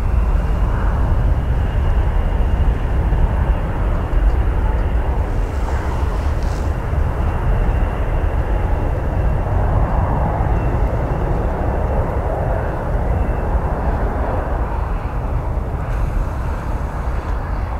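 Jet engines of a twin rear-engined regional jet rolling out on the runway after landing: a steady jet roar with a thin high whine that fades in the second half. Heavy wind rumble on the microphone lies under it.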